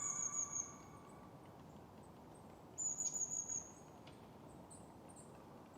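Small songbird calling outdoors: two high, thin, drawn-out notes that fall slightly in pitch, about three seconds apart, with a few faint higher chirps between.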